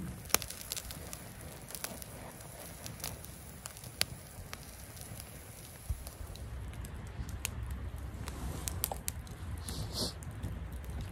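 Small wood campfire crackling, with irregular sharp pops scattered through.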